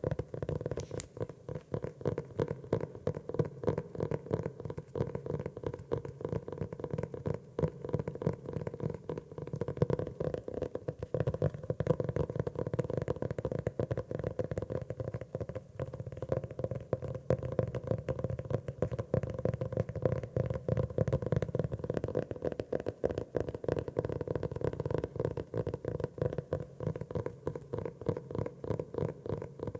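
Fingers tapping rapidly and continuously on a grey notebook, a stream of quick, dull taps with a low, hollow resonance.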